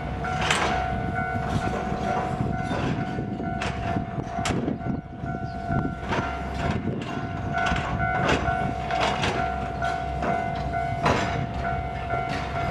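Japanese level-crossing electronic warning bell ringing steadily while a train runs past, with sharp wheel clacks at irregular intervals over the rumble.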